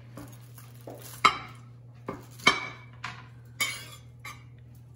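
Metal serving fork clinking and scraping against a serving tray while cutting and lifting crisp rice crust (tahdig): three sharp clinks about a second apart, with softer taps and scrapes between.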